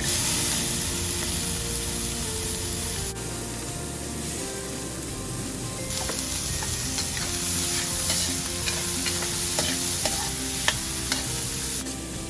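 Sliced carrots sizzling in hot oil and butter with onion, garlic and ginger in a frying pan, stirred with a spatula. The sizzle eases for a few seconds in the middle, and from about halfway on the spatula clicks against the pan.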